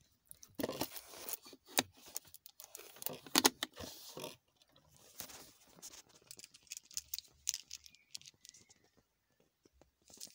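Rustling, scraping and clicking handling noise in irregular bursts as the phone is moved around a car interior, with a key ring jingling near the end.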